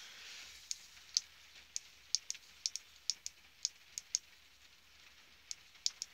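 Buttons on an AD100 key programmer's keypad clicking under quick presses, about a dozen in the first four seconds, a pause, then a few more near the end, as data is keyed in to program a remote fob.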